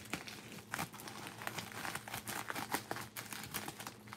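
Silver plastic mailer envelope crinkling as hands handle and turn it over, a run of irregular crackles.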